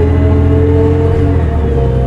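2005 New Flyer D40LF transit bus running under way: its Cummins ISL 8.9-litre turbo diesel in-line six drones low under a steady whine from the driveline that rises slightly. The low engine tone changes about three-quarters of the way through.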